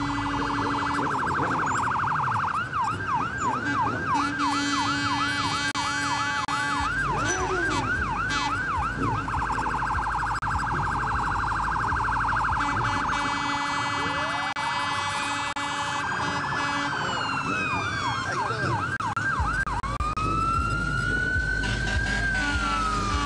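Several vehicle sirens sounding together: a fast yelp sweeping up and down about twice a second, over a steady high warble, with slower wails rising and then falling near the end.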